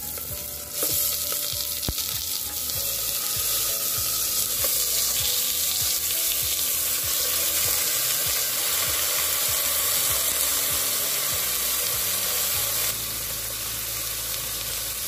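Raw mutton chops sizzling in hot oil in an aluminium pressure cooker. The sizzle gets louder about a second in as the meat goes into the oil, then holds steady, with a few sharp knocks of meat and bone against the pot early on.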